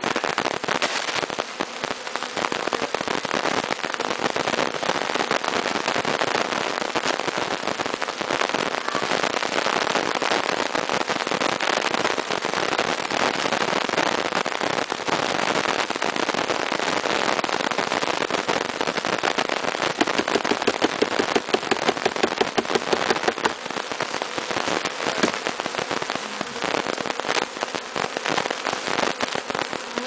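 A honeybee swarm crawling en masse over a cloth sheet up into a hive: a dense, steady crackling rustle of thousands of bees, with their buzzing.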